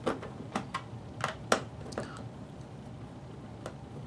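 Irregular sharp plastic clicks and taps from the yellow case of an IDEAL 61-310 digital multimeter being handled and opened at the back: about six in the first two seconds, then one more near the end.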